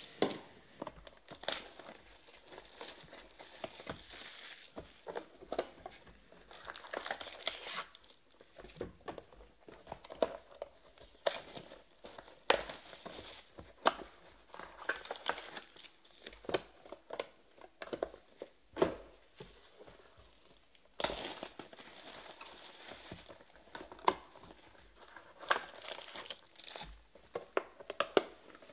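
Plastic shrink wrap crinkling and tearing as a Panini Stars and Stripes baseball card box is unwrapped and opened, in several stretches, with many sharp clicks and taps of the cardboard box and packs being handled.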